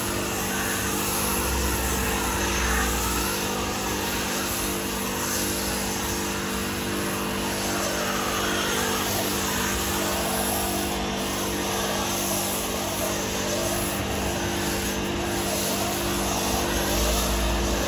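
AVA P80 electric pressure washer running with a steady hum while its snow foam lance hisses, spraying thick foam.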